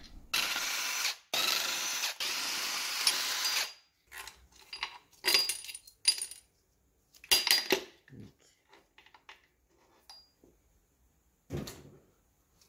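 A power tool runs in two spells, about a second and then about two seconds, spinning out the 10 mm bolts of the connecting rod bearing caps on a stripped-down Mercedes M271 engine block. After that come scattered metal clinks and knocks as the caps and bolts are lifted off and set down.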